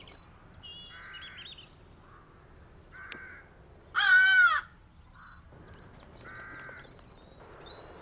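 Crow cawing: a few fainter caws, and one loud, harsh caw about four seconds in.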